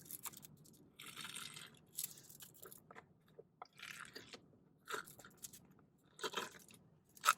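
Close-up crunching and chewing of food: several short crunches spread through, the sharpest near the end.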